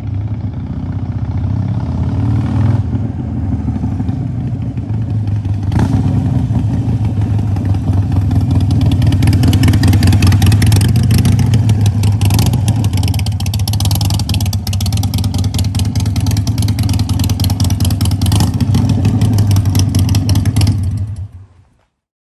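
Harley-Davidson Iron 883's air-cooled V-twin running through its exhaust, a loud, steady, low pulsing note that swells a little in the middle and cuts off suddenly near the end.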